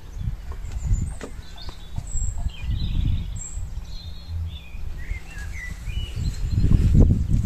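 Wild birds chirping and singing in short calls over a low, fluctuating rumble on the microphone, with a few faint knocks.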